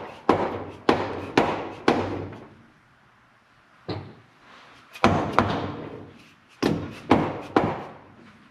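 Soft-faced hammer striking the cylinder of a Can-Am Maverick 1000 engine to break it loose from the crankcase: about ten sharp blows in quick groups of two or three, with a pause around the middle.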